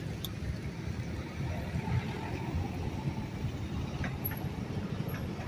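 Steady low rumble of motor vehicles, engine and road noise, with no speech over it.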